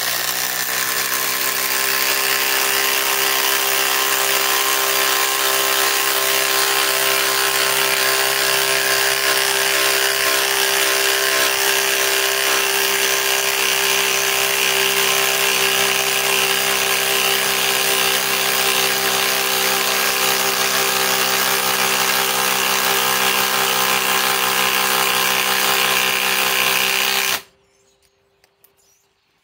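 Ryobi 2200 inch-pound four-mode cordless impact driver hammering steadily as it drives a 10-inch lag screw into very hard wood, under heavy load for nearly half a minute, then cutting off suddenly near the end.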